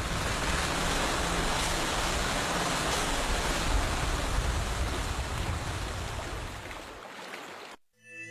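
Steady rushing noise of wind and lake water around a small wooden fishing boat out on open water, fading away and cutting off near the end.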